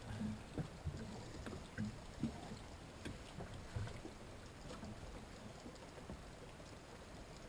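Water lapping and slapping against a small boat's hull as it drifts, with a few light irregular knocks in the first few seconds, then only faint steady water noise.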